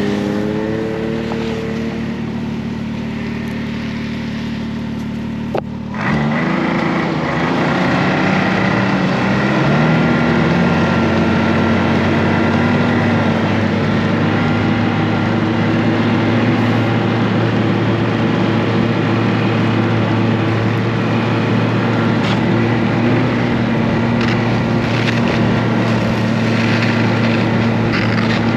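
Snowmobile engine running under way, heard from the rider's seat. After a short click about six seconds in, the engine note climbs for a few seconds as the sled speeds up, then holds steady at cruising speed.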